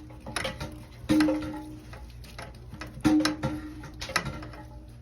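Plastic parts of a toilet flush valve being unscrewed and handled: a handful of sharp clicks and knocks, several followed by a brief ringing tone.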